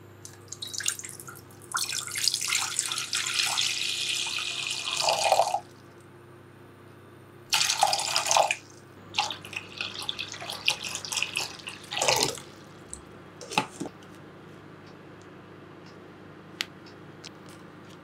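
Kitchen tap water running into a sink in three spells of a few seconds each, followed by a couple of knocks.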